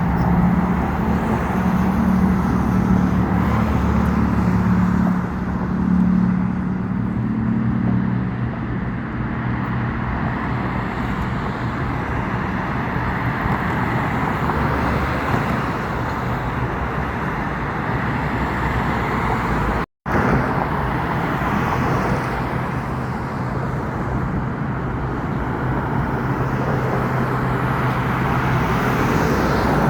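Steady road traffic noise with a low engine hum and no bangs. The audio cuts out briefly about 20 seconds in, and the hum runs at a lower pitch afterwards.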